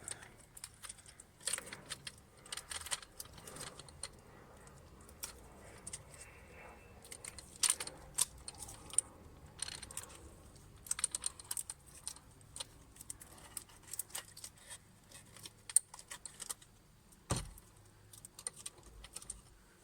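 Irregular light clicks, taps and small rattles of a new fuel pump and its fittings being handled by hand, with one heavier knock near the end.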